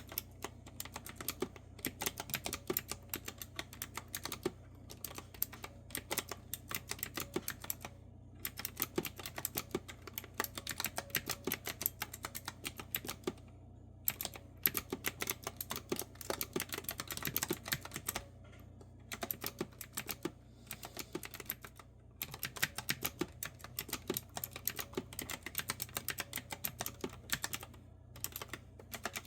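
Fast typing on a clicky retro-style keyboard with round keycaps: rapid runs of crisp key clicks in bursts of a few seconds, broken by brief pauses, over a faint steady low hum.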